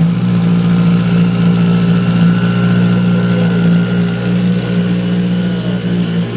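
The turbocharged Subaru STI drag car's flat-four boxer engine idling steadily at an even pitch.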